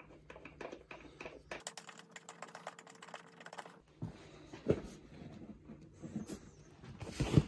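Quick, light clicking from tools and parts being handled while the old seat is taken off a motorcycle, followed by a few knocks; the loudest knock comes near the end.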